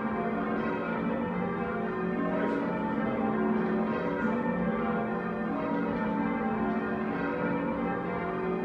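Church tower bells being rung in changes, struck one after another by ringers pulling the bell ropes: a continuous stream of overlapping bell strikes.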